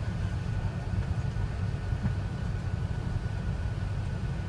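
Steady low rumble inside an Airbus A380's passenger cabin as the jet rolls on the ground after landing, with a faint steady whine above it.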